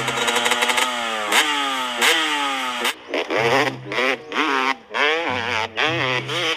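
Motocross dirt bike engine revving hard, its pitch climbing and dropping again and again, with shorter quick revs in the second half.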